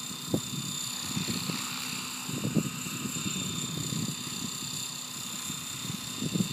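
Wind buffeting the microphone, with two sharper bumps, over a faint steady high whine from a small quadcopter drone flying low across the field.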